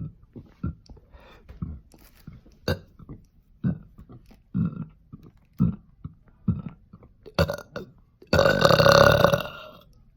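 A person burping: a run of short, quick burps about one a second, then one long, loud burp lasting about a second and a half near the end.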